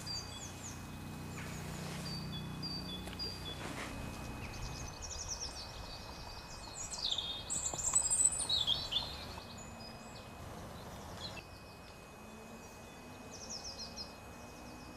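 Small songbirds singing: short repeated high notes, then quick chirping trills that are loudest around the middle, over a faint hiss of outdoor background noise.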